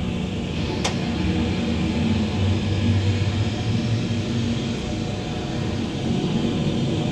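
Boeing 757 freighter's Rolls-Royce RB211 turbofans at takeoff thrust as the jet rotates and climbs away: a steady jet rumble that swells in the middle.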